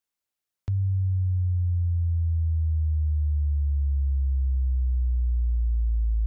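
Electronic sine-wave hearing-test tone at a very low pitch. It cuts in with a click just under a second in, out of silence, and then holds steady.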